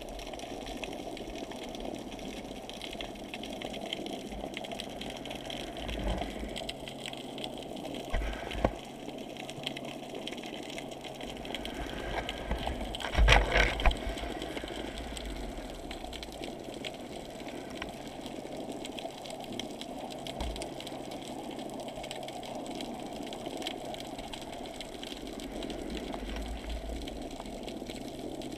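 Steady, muffled underwater rush heard through a GoPro's waterproof housing, with a few dull knocks, the loudest about 13 seconds in.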